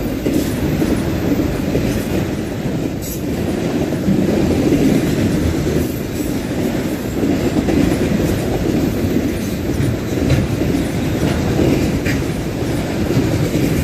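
Freight train cars rolling past at speed: a steady, loud rumble of steel wheels on rail, with a few faint clicks.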